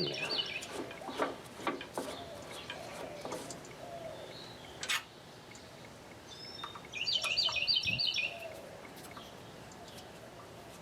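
A bird singing a quick run of repeated chirping notes, once at the start and again about seven seconds in, with a few scattered light clicks and knocks between.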